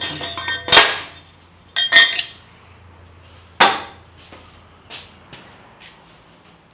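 Loose steel pieces clanking as they are lifted off the stand and set down, three loud metallic clanks with a short ring after each, followed by a few faint taps.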